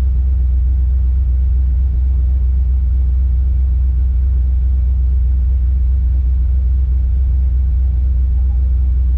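Competition 4x4 winch truck's engine idling steadily, heard from inside the cab as a constant low-pitched drone that does not rise or fall.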